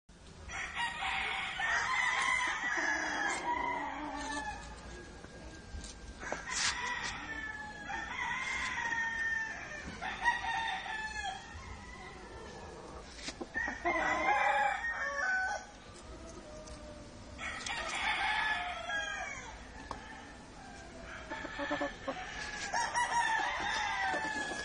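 Gamecock roosters crowing, crow after crow every few seconds, some crows overlapping.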